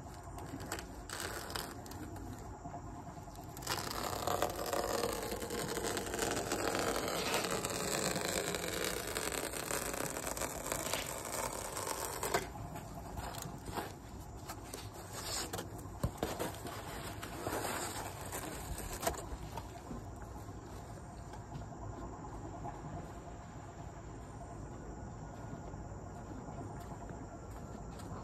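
Thin foam pool-floor underlay sheets being handled and dragged on concrete: rustling and scraping, loudest for several seconds from about four seconds in, with scattered knocks later.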